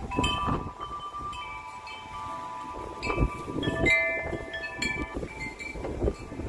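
Wind chime ringing in strong gusty wind, struck irregularly so that several tones overlap and linger, over low gusting wind noise on the microphone.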